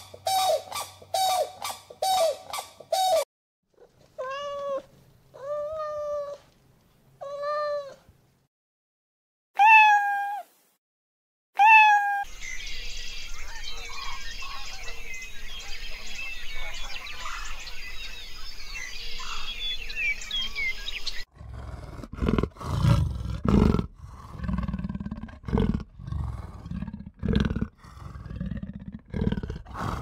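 Grey crowned cranes honking: a quick run of calls, about three a second, then a few drawn-out single calls. Then a steady hiss with faint bird chirps. Near the end a wild cat growls low and rhythmically, about one growl a second.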